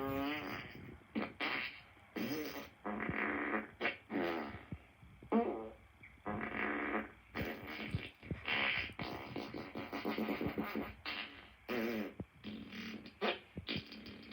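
A rapid series of fart sounds, one after another, more than a dozen in all. Each is a short blast of under a second to about a second; some have a wavering pitch and others are noisier.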